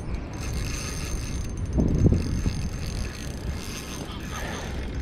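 Spinning fishing reel being cranked to retrieve the line, with wind rumbling on the microphone and a louder low rumble about two seconds in.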